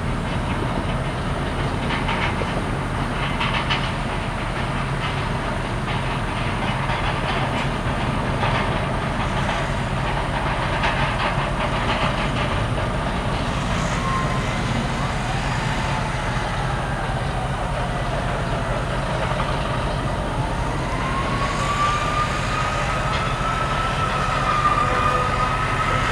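Steady low engine rumble with scattered clanks and clicks. In the second half a high tone slowly rises and wavers, like a distant siren.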